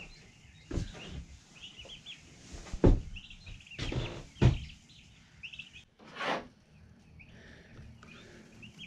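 Baby turkey poults peeping in short, high chirps, with a handful of louder knocks and scuffs.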